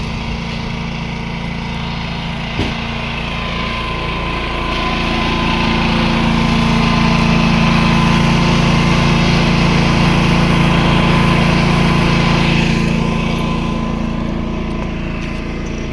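Predator 11,500-watt inverter generator running steadily while powering an inverter arc welder. From about five seconds in the sound grows louder and a hiss spreads over it, then it settles back near the end.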